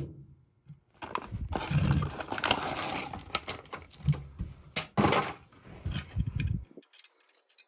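Plastic blister packaging crackling and rustling with scattered sharp clicks as a die-cast model truck is cut and pried out of its card. It stops near the end.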